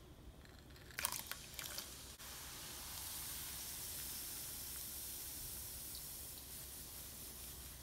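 Raisins dropped into hot oil in a perforated frying basket: a short run of sharp crackles and spatters about a second in, then a steady sizzle of the oil as they fry.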